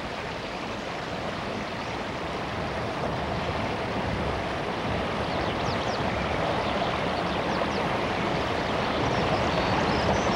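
Rocky stream rushing over stones: a steady hiss of flowing water that grows gradually louder.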